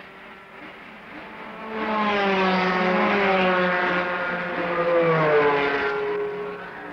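Porsche 917 race car's flat-twelve engine at speed, swelling up about two seconds in and dropping in pitch as the car passes by, then fading away.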